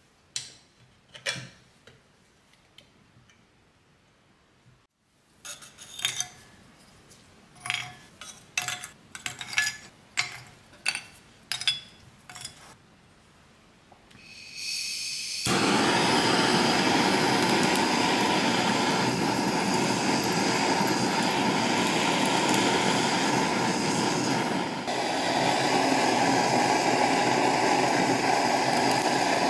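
Lumps of charcoal clinking as they are dropped into the firebox of an antique coal-fired clothes iron, a string of sharp separate knocks. About halfway through, a gas torch lights and blows a steady hiss onto the charcoal to ignite it, dipping briefly near the end.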